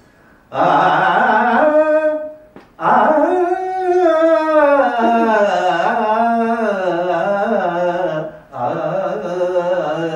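A man's voice singing a Hindustani classical alap, unaccompanied: long held vowels gliding slowly from note to note, in the style of the Gwalior gharana. The phrases break for a short breath near three seconds in and again about eight and a half seconds in.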